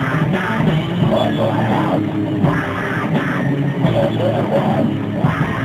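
Death metal band playing: distorted electric guitars and drums in a dense, loud, unbroken wall of sound, muffled with little treble.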